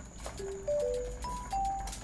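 Background music: a short melody of single clear notes that repeats every couple of seconds.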